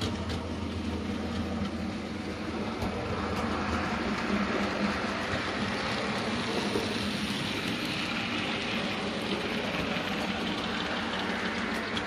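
Model railway goods train running past: the locomotive's electric motor hums and the wagon wheels rumble steadily along the rails, a little louder in the middle as it passes closest.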